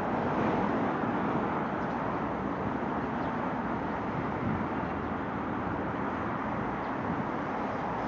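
Steady road traffic noise: the continuous rush of cars driving along a city street, with no single event standing out.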